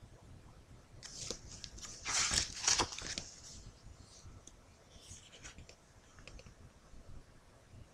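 Paper pages of a thin picture book being turned by hand: a rustle of paper, loudest about two to three seconds in, then a few fainter rustles as the page is smoothed down.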